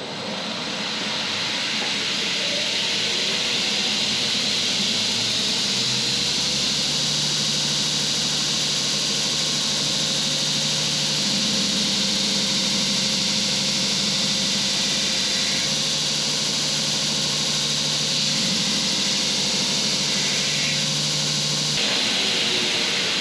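Belt grinder running and sanding down a wooden axe handle: a steady hiss from the belt that builds over the first couple of seconds, with a lower hum that comes and goes from about six seconds in and stops shortly before the end.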